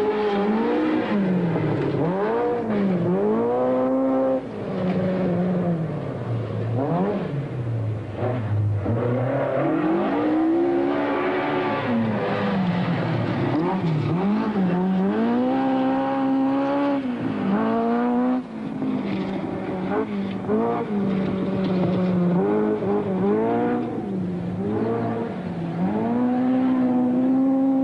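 A rally car engine driven hard on a gravel stage. The revs climb and fall again and again, with sudden drops in pitch at several points.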